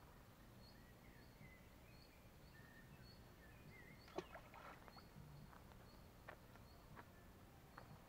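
Near silence outdoors: faint, short, high chirps repeat about twice a second throughout. A small cluster of soft clicks comes about four seconds in, followed by a few single faint clicks.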